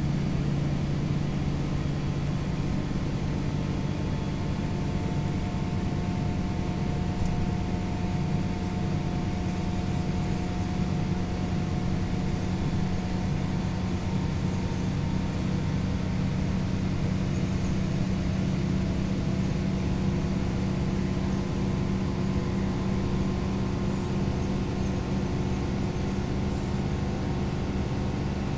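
Interior drone of a 2008 Gillig Phantom transit bus under way, with its Cummins ISL straight-six diesel running steadily and road noise, heard from inside the cabin. The engine note shifts slightly higher about halfway through.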